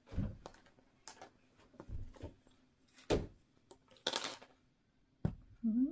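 Plastic Play-Doh tub being handled on a table as the dough is tipped out of it: a series of knocks and light thuds about a second apart, the loudest just after three seconds, with a brief hiss just after four. A short rising tone begins near the end.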